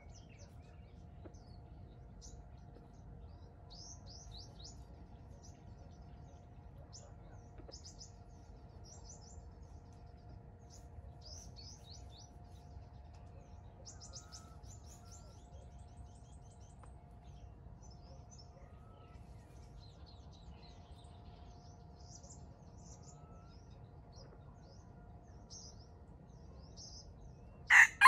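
Faint, scattered high chirps of small birds over a steady faint hum, then in the last second a junglefowl rooster starts a loud crow.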